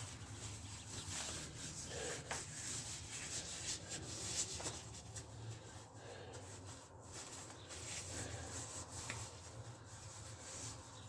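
Irregular scraping and rubbing of parts being worked by hand on a lawn mower's front axle, over a low steady hum.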